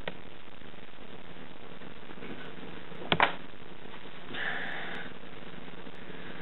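Steady hiss, with two sharp clicks about three seconds in and a short hissing noise about a second later.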